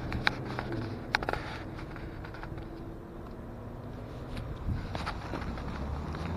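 Road traffic at a street intersection: car engines running with a steady low hum and the noise of passing cars. A few sharp clicks come in the first second and a half.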